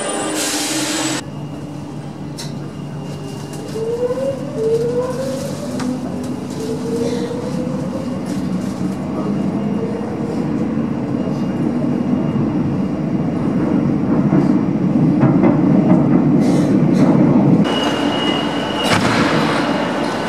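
Madrid Metro train: a short hiss of air, then the electric drive whines rising in pitch as a train pulls away, with rumble underneath. A heavier rumble of a train builds and cuts off abruptly near the end, followed by a short beep and another hiss of air.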